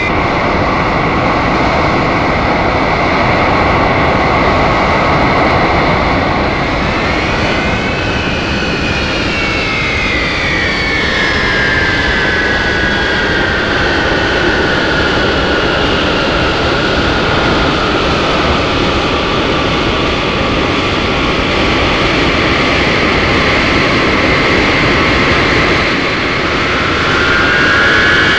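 Jet aircraft sound effect played from a vinyl sound-effects record: a dense, steady engine noise with a whine that rises in pitch about a third of the way in, then falls slowly, and rises again near the end. Other looped effect tracks are mixed over it.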